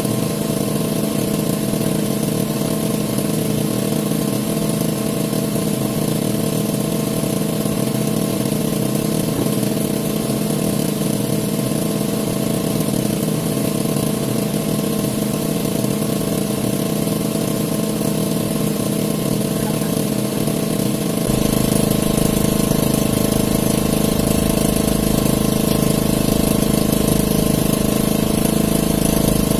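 A small engine running steadily at a constant speed. About three-quarters of the way through it suddenly gets a little louder, with more low rumble.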